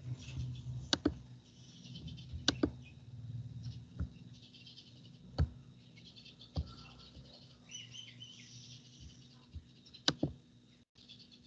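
Scattered sharp clicks and taps, about six, over a faint steady low hum, with a brief high chirping near eight seconds.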